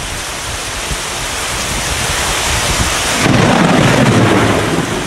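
Heavy monsoon rain pouring steadily. About three seconds in, a sudden loud thunderclap breaks in and rumbles for nearly two seconds.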